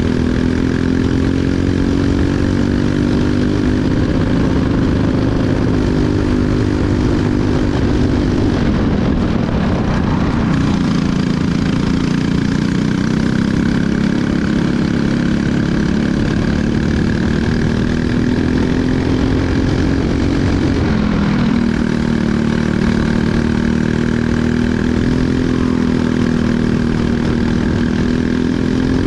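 Briggs & Stratton LO206 single-cylinder four-stroke kart engine running under racing load, heard onboard. The revs climb steadily and fall away twice, about nine and about twenty-one seconds in, as the kart slows for corners.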